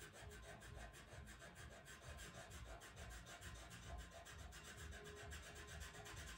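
Pastel pencil scratching faintly across Pastelmat paper in quick, even back-and-forth strokes, several a second.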